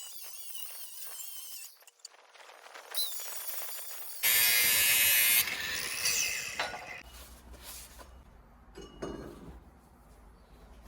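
Metal-shop tool noise in short, abruptly cut segments, loudest a steady hiss a little over four seconds in that lasts about a second; no speech.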